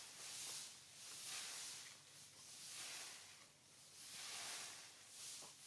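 Faint insect chorus: a high hiss that swells and fades about once a second.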